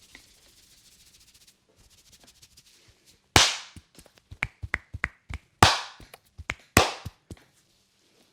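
Hands slapping and tapping on a head during an Indian head massage. After a few seconds of faint rubbing, three loud slaps come about a second apart, with quick lighter taps between them.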